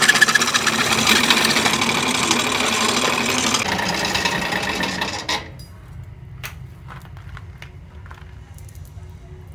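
Drill press boring through a steel tractor wheel centre disc: a loud, dense grinding noise of the bit cutting steel, which stops suddenly about five seconds in. A few light metallic knocks follow as the disc is handled.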